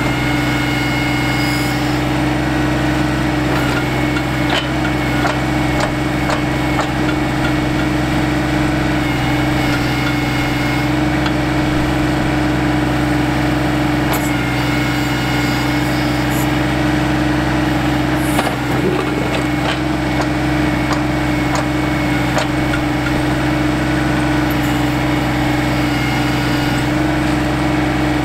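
John Deere 2025R compact tractor's three-cylinder diesel engine running steadily while it powers the 270A backhoe digging a hole. A few short knocks and clicks sound over the steady engine noise.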